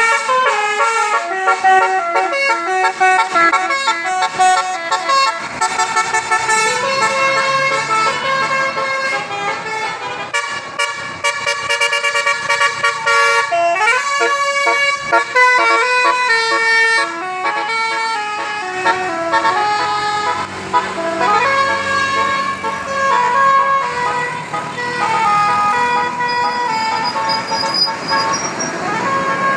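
Indonesian bus telolet horns (Basuri multi-tone musical air horns), several sounding against each other in stepping, melodic note patterns. Rising siren-like sweeps come about halfway in, again about two-thirds in, and near the end.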